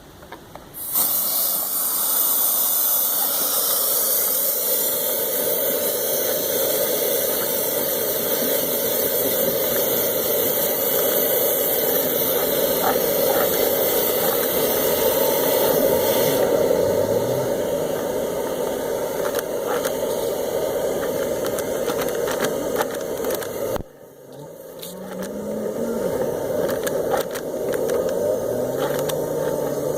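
Air-driven skipper ball on a dryer vent cleaning snake, spinning inside the vent duct with a steady loud hiss and rattle of blowing air. The sound cuts out abruptly about three-quarters of the way through, then builds back up with a rising whine.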